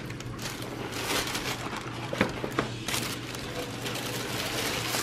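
Thin plastic takeout bag rustling and crinkling as a hand rummages through it and shifts cardboard food boxes, in irregular bursts over a low steady hum.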